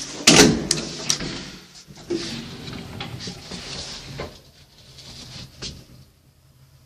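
Lift doors sliding, with a loud knock just after the start and a couple of sharp clicks, then a hiss that dies away near the end.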